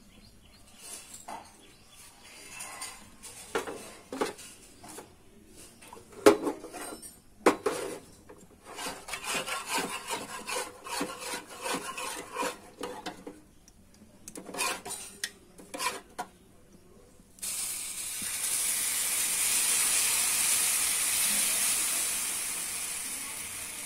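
Utensils clink and scrape. Then, a little over two-thirds of the way through, a steady sizzle starts suddenly as balamrutham dosa batter is poured from a ladle onto the hot dosa pan.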